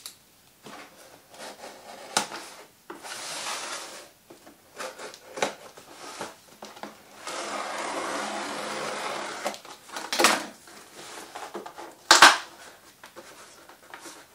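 Cardboard kit box and its packaging being handled and opened: two longer stretches of rubbing noise and several sharp knocks, the loudest about twelve seconds in.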